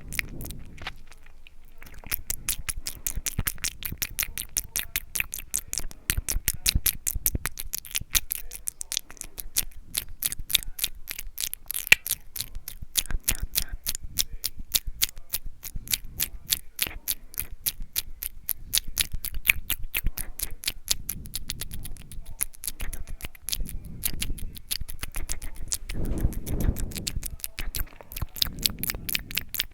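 ASMR mouth sounds: rapid wet clicks and smacks of the lips and tongue, several a second, with a short pause just after the start.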